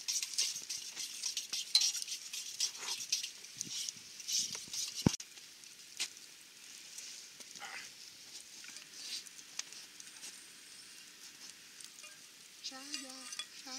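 Wood campfire crackling and hissing with many small pops, busiest in the first few seconds, with one sharp pop about five seconds in.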